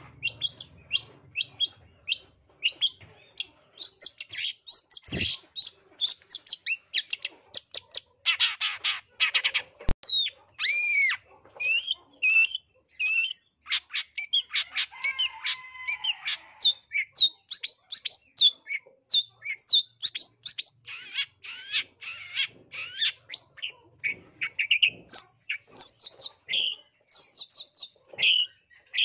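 Long-tailed shrike (cendet) singing a fast, varied song of rapid chirps and whistled notes, the aroused 'narung' song full of mimicked phrases. About nine seconds in it breaks into a harsh buzzy scold, followed by swooping whistles.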